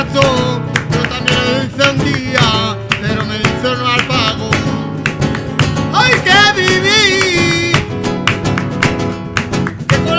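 Flamenco music: acoustic guitar strumming in sharp, rapid strokes under a singer's wordless, ornamented line. About six seconds in, the voice holds a long, wavering melisma.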